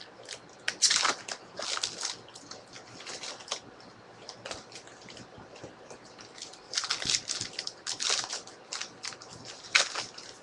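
Trading-card pack wrappers crinkling and cards being handled, in irregular bursts of rustling, busiest about a second in and again in the last few seconds.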